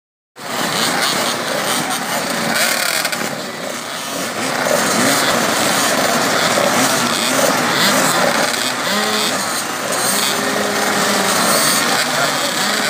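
A pack of two-stroke motocross bikes idling and blipping their throttles together on the start line. Many engines overlap, their pitches rising and falling.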